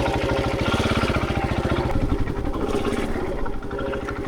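Husqvarna 701 Enduro's single-cylinder engine running at low revs, its firing pulses plain, picking up a little about a second in and easing off again near the end.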